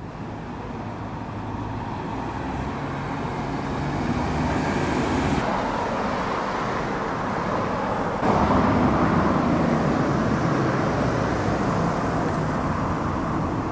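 Road traffic noise: a steady wash of passing cars that gradually swells, stepping louder about eight seconds in.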